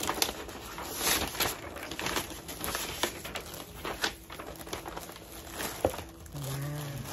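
Paper and packaging rustling and crinkling as shoes are unwrapped from their box by hand, with many small scrapes and crackles. A short vocal sound comes near the end.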